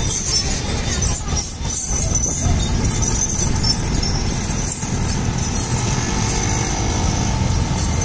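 Street traffic with motorcycle and scooter engines running, under a steady, high metallic jingling from the chains hanging on the walking elephants.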